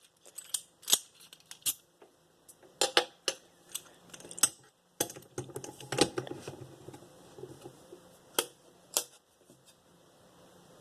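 Irregular sharp clicks and taps of a Master Lock 410 padlock and lockpicking tools being handled, with a short rattle about six seconds in.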